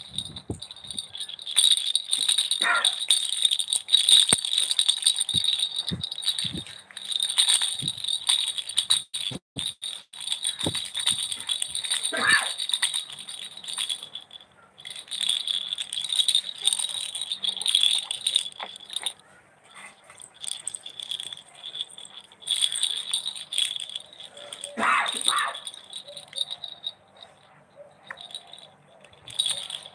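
Baby's pink plastic toy rattle being shaken and handled, its jingling rattle starting and stopping again and again.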